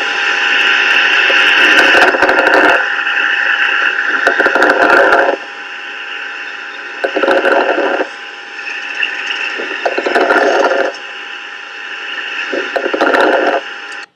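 A child's breath sounds recorded through a stethoscope: noisy breaths that swell and fade about every two and a half to three seconds, with crackling in the loudest phases and a steady high musical tone underneath.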